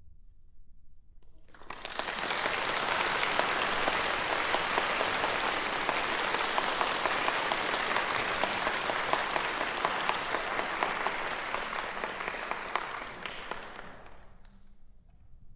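Audience in a concert hall applauding. The clapping starts suddenly about two seconds in, holds steady, and dies away over the last couple of seconds.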